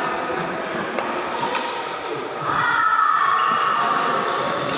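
Badminton rally: a few sharp taps of rackets striking the shuttlecock, over the steady echoing noise of a busy sports hall that grows louder about halfway through.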